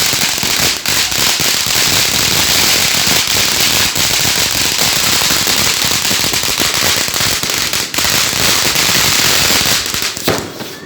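Fireworks fountain spraying sparks: a loud, steady hiss packed with dense crackling, dying down near the end.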